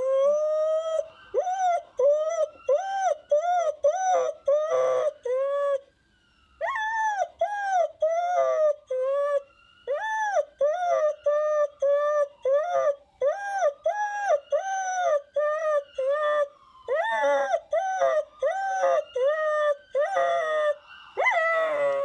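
A dog howling in a long run of short rising-and-falling notes, about two or three a second, with a brief pause about six seconds in. A siren sound wails faintly behind the howls.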